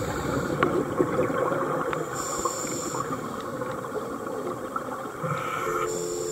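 Underwater noise picked up by a diver's camera: a dense crackling hiss with a few sharp clicks.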